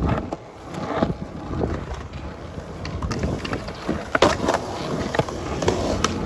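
Skateboard wheels rolling on concrete in a steady rumble, with several sharp clacks of the board, the loudest about four seconds in and another near the end as the skater pops the tail.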